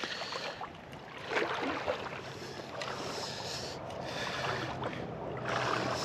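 Seawater splashing and sloshing around the legs with each stride of a person wading into shallow water, coming in repeated surges about once a second.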